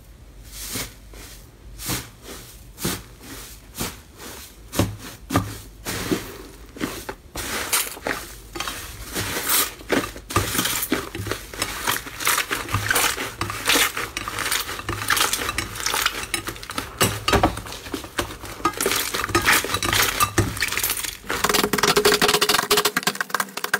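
Hands pressing and squeezing slime against a glass bowl, making quick crackling pops and clicks. The pops come sparsely at first and crowd into a dense crackle from about eight seconds in.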